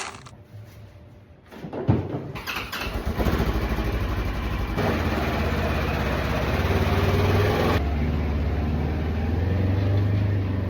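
A single knock, then about two and a half seconds in an engine starts up and keeps running steadily with a low, rhythmic note.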